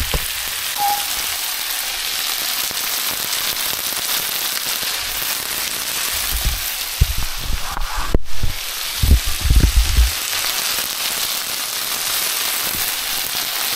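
Barbecue-sauce-glazed chicken thighs frying in a non-stick pan: a steady sizzle with crackling spits. Several low bumps come in the middle, and the sound drops out for an instant about eight seconds in.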